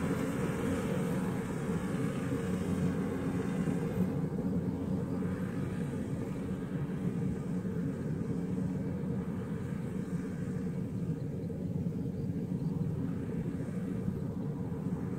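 Engine of a Kubota rice combine harvester running at a steady working drone, getting slightly fainter from about four seconds in as the machine moves away.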